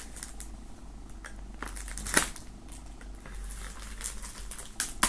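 Knife blade scratching and slitting the plastic shrink-wrap on a CD jewel case, with scattered sharp clicks and light crinkling of the film. The sharpest click comes about two seconds in, and two more come near the end.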